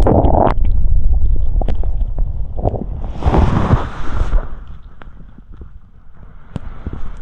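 Human stomach and gut gurgling and rumbling, picked up close: a low rumble full of quick pops and clicks, quieter past the middle, with a short rushing hiss about three seconds in. The uploader puts the noise down to having eaten a little too much fast food.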